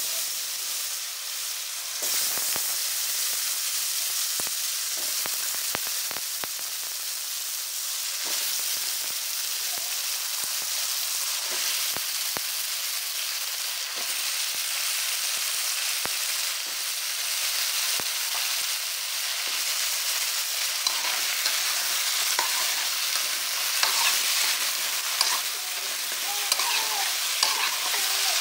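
Raw potato cubes frying in hot oil in a karahi: a steady loud sizzle, with scattered pops and crackles coming in over the last third.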